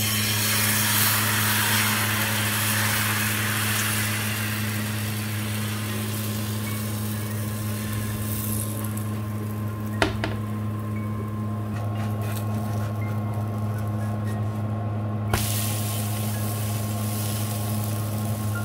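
Chickpea-flour pancake batter sizzling as it is poured into a hot oiled frying pan, loudest at first and dying down over several seconds, over a steady low electrical hum. A sharp click about ten seconds in and another about fifteen seconds in, after which the sizzling picks up again.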